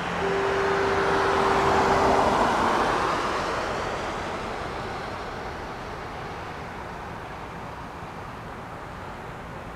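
A road vehicle passes close by; its noise swells to a peak about two seconds in and then fades slowly. Under it, a distant harbor foghorn holds one steady low note that stops about two seconds in.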